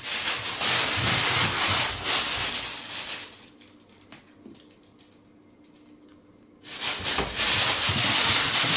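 A plastic shopping bag rustling and crinkling as the cat caught in it runs across the floor. The crinkling goes quiet for a few seconds in the middle, then comes back loud near the end as the cat scrambles off again with the bag over its body.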